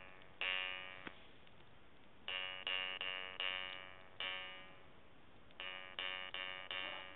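Jew's harp (vargan) twanged in short runs: a single twang, a run of four quick twangs, another single, then four more. Each note is buzzy and ringing with rich overtones and fades away before the next.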